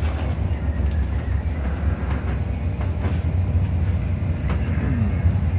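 Steady low mechanical rumble with no clear events.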